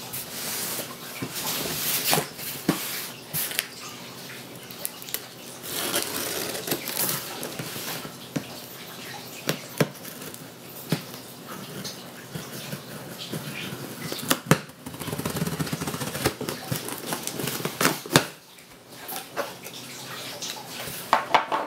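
A box being opened and its contents handled: irregular rustling and scraping, broken by many sharp taps and knocks.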